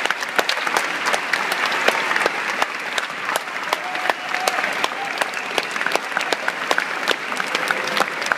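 Audience applauding steadily, a dense patter of hand claps with single close claps standing out.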